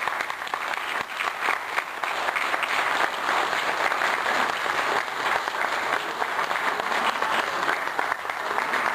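Audience applauding: many people clapping in a steady spell that grows a little fuller a few seconds in.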